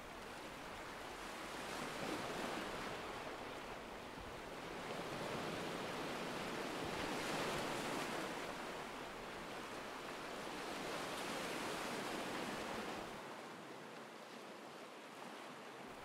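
Recorded ocean waves washing onto a shore, used as a faint backing track, swelling and falling back in slow surges every few seconds.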